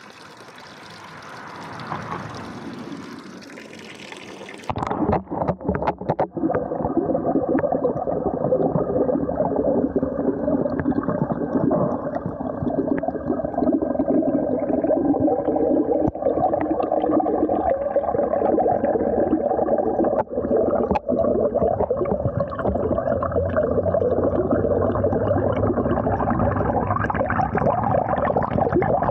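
Fountain water pouring from a spout into a stone basin. For the first few seconds it is a splashing heard from above the surface; about five seconds in, after a few knocks, it is heard underwater as a louder, muffled, continuous rumble and bubbling of the jet striking the pool.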